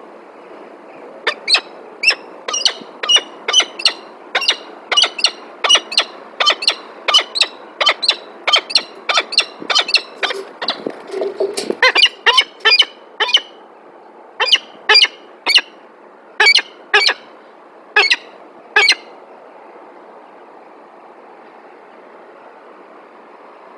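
Peregrine falcons calling: a long series of harsh, repeated calls, about two or three a second, slowing to single calls and stopping a few seconds before the end.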